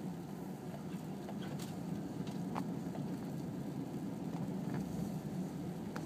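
Car engine running steadily, heard from inside the cabin as a low hum, with a few scattered light ticks.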